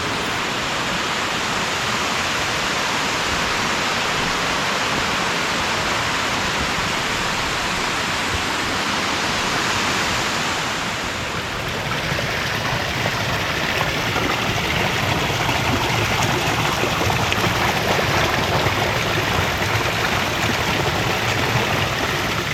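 Flowing water rushing steadily, its sound shifting slightly about eleven seconds in.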